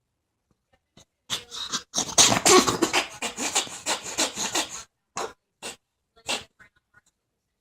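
A pet animal coughing: a rapid run of hacking coughs lasting about three and a half seconds, then three short single coughs.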